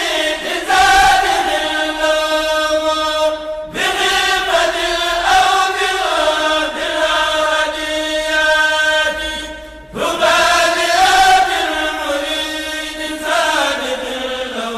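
Vocal chanting in long, held, slowly wavering notes, breaking off briefly about four seconds in and again about ten seconds in.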